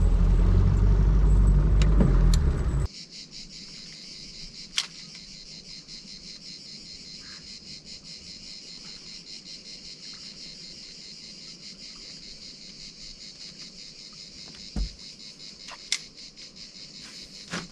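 Boat's outboard motor running for about the first three seconds, then cutting off suddenly. After that, a steady, high chorus of crickets chirping, with a couple of short clicks.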